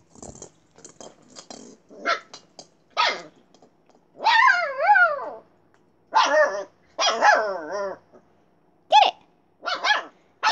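Siberian husky–Alaskan malamute puppy vocalizing. It gives a few short huffs, then two long calls a few seconds in whose pitch wavers up and down, then several short sharp barks near the end.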